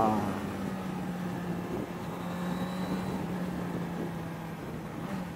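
Suzuki Bandit 600's air/oil-cooled inline-four engine running at a steady cruise under the rider, its note easing slightly lower, with a brief dip near the end. Wind rushes over the onboard microphone.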